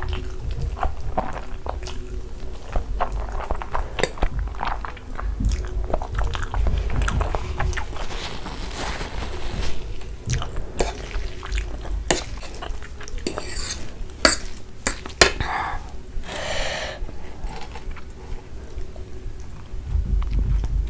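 Close-miked eating of saucy black bean noodles: wet chewing and slurping, with a metal fork clicking and scraping against the plate several times.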